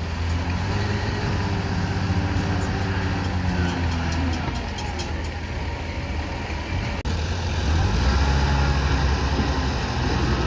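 An engine running steadily with a low, even hum. About seven seconds in the sound breaks off for an instant and comes back with a heavier low rumble.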